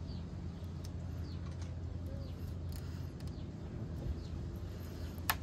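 A steady low background hum, with faint short high chirps, like small birds calling, every second or so, and one sharp click about five seconds in.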